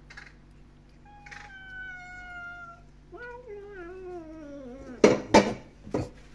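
A cat meowing twice: a long, level, slightly falling meow, then a second meow that drops and wavers in pitch. Near the end come a few sharp knocks, louder than the meows.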